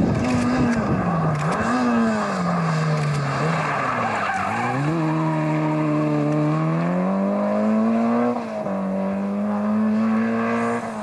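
Peugeot 205 GTI 1.9 rally car's four-cylinder engine at racing revs as it drives past on a gravel stage. The engine note falls and climbs several times, with a sharp climb about halfway through and a sudden drop in revs near the end.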